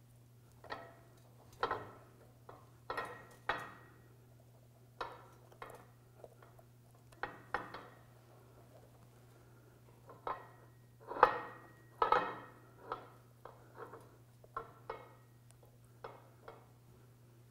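Irregular small metal clicks, clinks and scrapes as a metal band clamp is worked around the rubber boot of a ball and trunnion universal joint and tightened down. The loudest clicks come about two-thirds of the way through.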